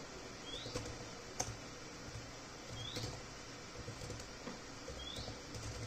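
Faint computer keyboard typing: a few scattered key clicks over a low background hum. Three short, faint rising chirps come about two seconds apart.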